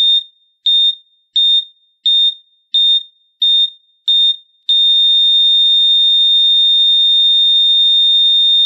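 Hospital heart monitor beeping at a steady pulse, seven beeps about two-thirds of a second apart, then going into one long unbroken tone of the same pitch about five seconds in: a flatline, the sign that the patient's heart has stopped.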